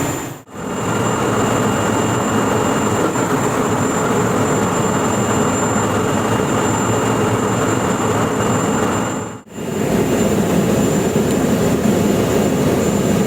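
Boiler burner and fan running with a loud, steady machinery noise and a faint high whine, broken twice by brief dropouts, about half a second in and again past the middle.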